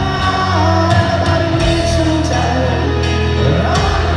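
Live rock band playing a power ballad: piano, electric guitar and drums, with a singing voice over them, heard from the arena seats.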